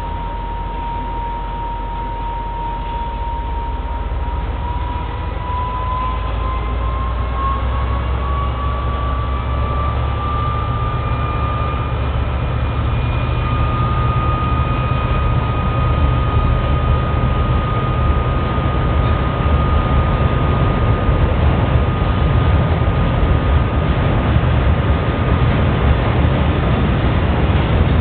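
Diesel-hauled HzL freight train running, its low engine rumble slowly growing louder. A steady high whine rises in pitch a few seconds in, then holds.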